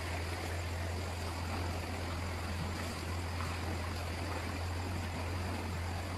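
Stream water running steadily over rocks, an even rushing wash, with a steady low hum underneath.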